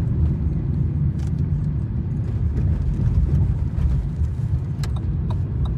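Car running along city streets, heard from inside the cabin: a steady low rumble of engine and road noise. A few light clicks come near the end.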